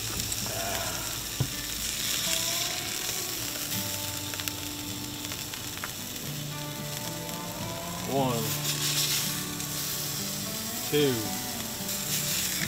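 Sea bass fillets sizzling steadily as they sear in a hot, oiled cast-iron skillet, with a single click about a second and a half in. Two brief falling tones stand out, about eight and eleven seconds in.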